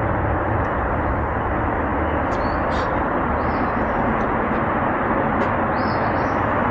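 A steady rushing, hiss-like noise at an unchanging level, with a low hum beneath it.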